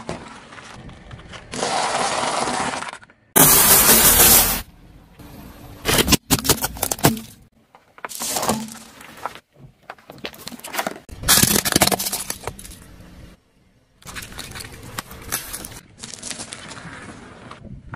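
Objects cracking and breaking as a car's tyres roll over them, in a series of short clips that start and stop abruptly.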